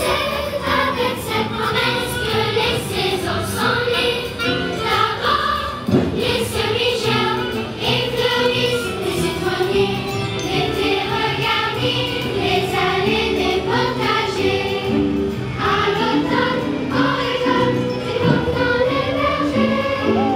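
A choir of children singing a song together over instrumental backing music.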